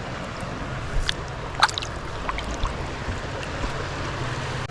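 River water flowing steadily around the wader, with a couple of brief splashes about a second in and shortly after.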